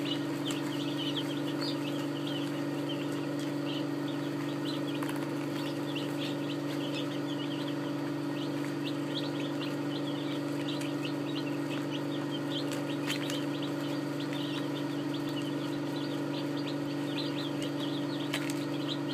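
A brood of day-old Red Ranger chicks peeping continuously, many short high cheeps overlapping, over a steady low hum.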